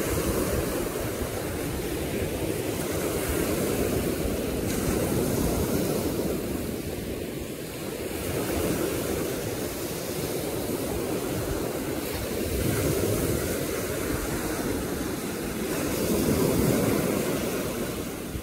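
Small sea waves breaking and washing up a shell-covered beach, the surf swelling and easing every few seconds.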